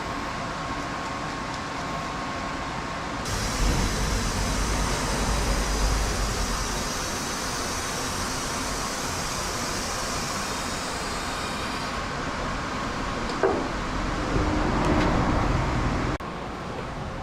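Steady vehicle running and road noise with a deep rumble. The sound changes abruptly about three seconds in and again near the end, with a few light knocks shortly before the end.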